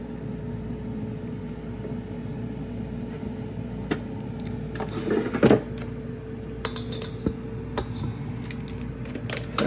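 Tongs and flour-coated chicken wings clicking and knocking against an air fryer basket as the wings are packed in. The clicks are scattered, with the loudest about halfway and a cluster near the end, over a steady low hum.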